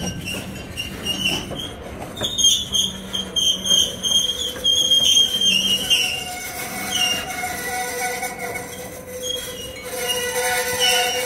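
Freight cars rolling slowly past, their steel wheels squealing against the rails over a low rumble. The squeal is high and shrill in the first half, then shifts to a lower, steady multi-tone squeal.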